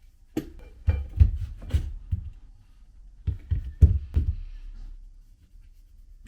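A rusty rifle being handled on a bench: a quick run of knocks and clunks about half a second in, then a second run of knocks about three seconds in.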